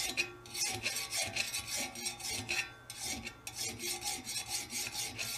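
Hand file rasping along the steel bars of a welded scrap-metal sculpture in quick, repeated strokes, a few a second, with brief pauses. It is filing off the burrs and sharp edges left from welding and grinding.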